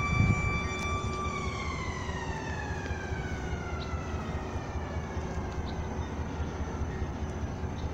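Approaching GE AC44i diesel-electric freight locomotive: a steady low rumble, with a high whining tone that holds for about a second and then glides slowly down in pitch.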